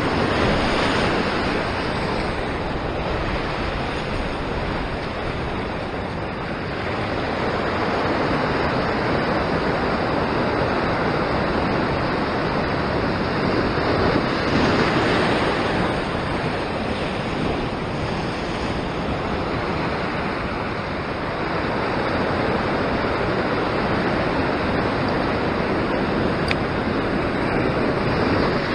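Sea waves surging over a rock shelf and washing back off it in white foam, a steady rushing wash that swells and eases every several seconds.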